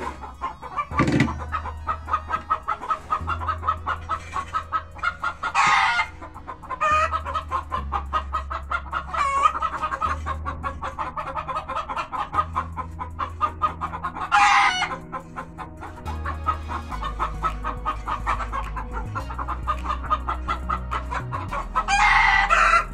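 Chickens clucking in a coop, with a few short, louder sounds standing out over the clucking, set against background music with a steady bassline.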